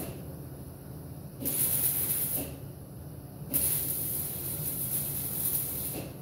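Pressurised spray hissing from a nozzle in bursts: the tail of one burst at the start, a short burst about a second and a half in, and a longer one of about two and a half seconds starting around three and a half seconds in.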